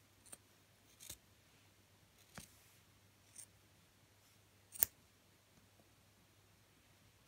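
Scissors snipping through foam: a few quiet, separate snips spread out, the sharpest about five seconds in.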